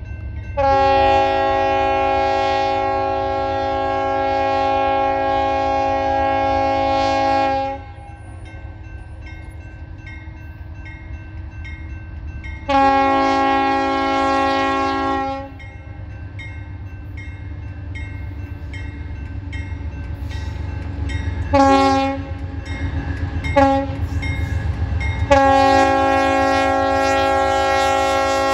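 Union Pacific freight locomotive's multi-note air horn sounding the grade-crossing signal: long, long, short, long, with the last long blast still going at the end. Beneath the horn, the low rumble of the diesel locomotives grows louder as the train approaches.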